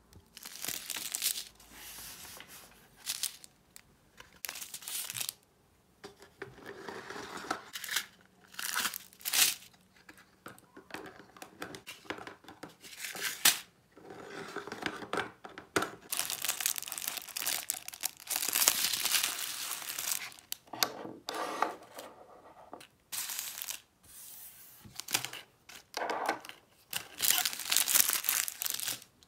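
Small clear plastic bags of diamond painting drills crinkling and rustling in irregular bursts as they are handled and torn open.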